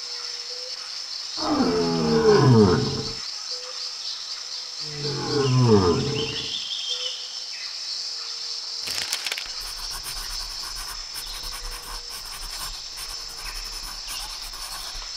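A lion roaring twice, each call about a second and a half long and falling in pitch, over a steady high chirring in the background. A brief swish comes about two-thirds of the way in, followed by faint scratchy sounds.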